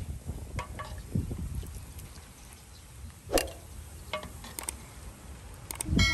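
A metal ladle scooping soup from a metal pot and pouring it into a ceramic bowl: splashing and pouring liquid, with scattered clinks of the ladle against the pot and bowl. A bright ringing chime starts right at the end.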